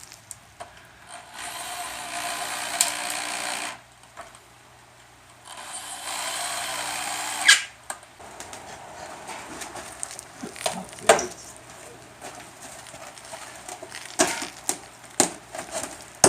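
Power drill running in two bursts of about two seconds each, followed by scattered clicks and knocks.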